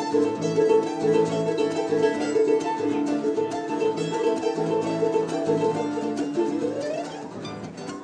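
Charango and nylon-string guitar playing an instrumental duet, with bright, rapid strummed and plucked notes over a sustained melody. Near the end one note slides upward.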